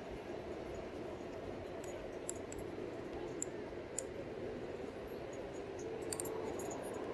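Steady rolling noise from a RadMini electric fat-tire bike riding slowly on concrete, with faint scattered clinks and ticks from the bike's rattling parts.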